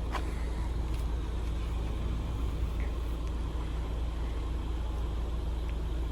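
Steady low mechanical hum with a short click at the start and a few faint ticks.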